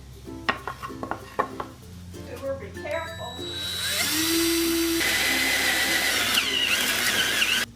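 Light clinks and background music, then about halfway through a power tool speeds up and runs steadily at high speed, cutting off abruptly near the end.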